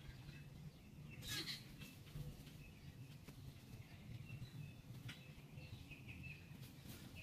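Faint bird chirps throughout, short and repeated, with a brief rustle of leaves and soil about a second and a half in and again, smaller, about five seconds in, as sweet potato vines are handled.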